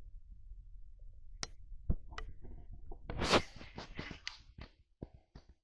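A small 3D-printed plastic pin being cut off a chair's foot: a short cutting sound about three seconds in, with a few faint clicks of handling before it and a run of small ticks after as the part is handled.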